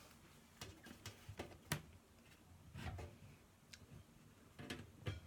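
Handful of light, sharp clicks and taps, about seven in five seconds, the loudest a little under two seconds in, with a soft rustle in the middle: a multi-tool and small power-supply mounting screws being handled.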